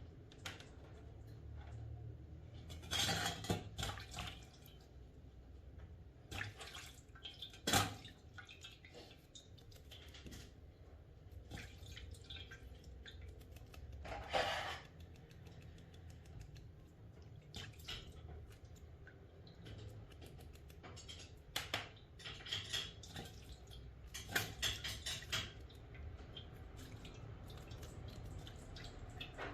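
Small metal diesel-injector parts and hand tools clinking and rattling against each other and a hard work surface, in scattered short clatters with a sharper knock about eight seconds in and a busier spell near the end, as the injectors are taken apart.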